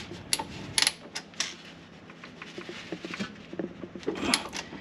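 Ratchet wrench clicking in short, scattered strokes as a hex-bit socket on an extension works the tight bolts of a car's inner CV joint flange. The clicks are strongest in the first second and a half and come again, more faintly, after about three seconds.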